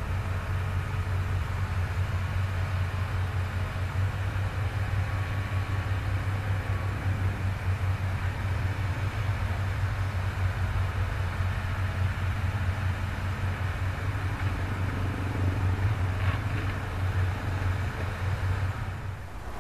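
Hitachi hydraulic excavator's diesel engine running steadily with a low hum.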